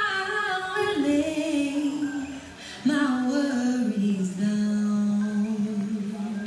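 A single voice singing a slow tune unaccompanied, in long held notes that step downward. It breaks off briefly near the middle and ends on a long low note.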